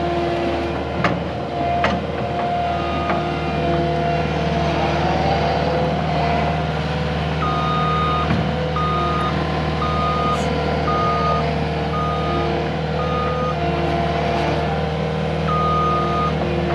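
CAT skid steer's diesel engine running steadily, its reversing alarm beeping about once a second for several beeps midway and once more near the end as the machine backs up. Two sharp knocks come about a second in and again a second later.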